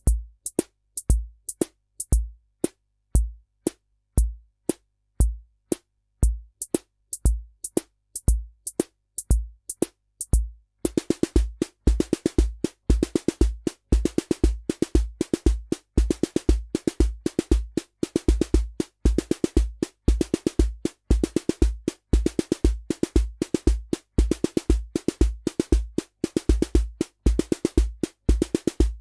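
Korg SR-120 Mini Pops analog rhythm machine playing a preset pattern: a sparse beat of bass drum and crisp hi-hat clicks. About eleven seconds in it changes to a busier pattern, with quick pitched drum hits over the bass drum.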